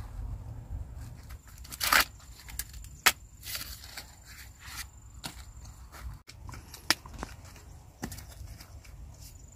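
Husks being torn off fresh ears of corn by hand: irregular tearing and rustling of green leaves, with a few sharp snaps.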